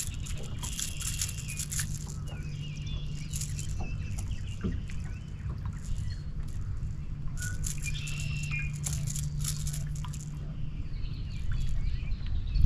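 Birds chirping and calling in quick clusters, over a steady low hum.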